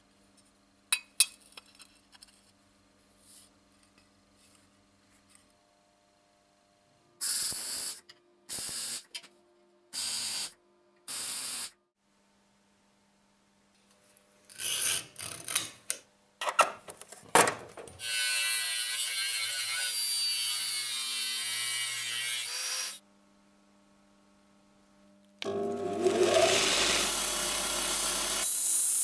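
A run of hand metalworking sounds: light clicks and scratches, four short bursts of harsh noise, and a few seconds of steady rasping. Near the end a homemade belt grinder, driven by an angle grinder, starts up with a rising whine and sands the edge of a steel plate.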